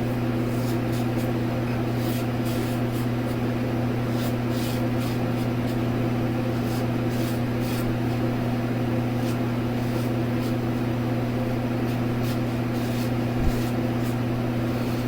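Steady low hum of a fan or appliance, with many faint, short, irregular scrapes of a Gem single-edge safety razor cutting lathered stubble.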